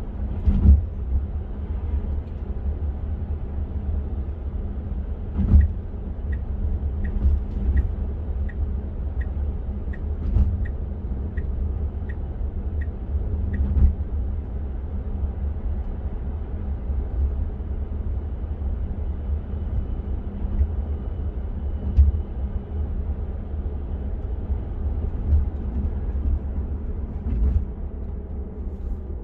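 Road and tyre rumble inside the cabin of a Tesla Model 3 electric car moving at speed, with a few short thumps. About a fifth of the way in, the turn-signal indicator ticks evenly, roughly one and a half ticks a second, for several seconds.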